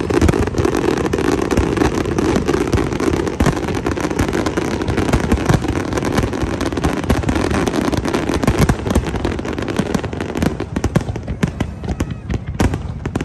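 Aerial fireworks bursting in a dense, continuous barrage: rapid overlapping bangs and crackling over a steady rumble, the bangs growing sparser and more separate in the last few seconds.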